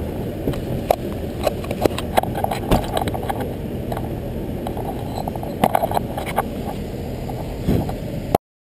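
An action camera being handled on its mount, with frequent knocks and clicks from the housing over a steady low rumble. The sound cuts off suddenly near the end.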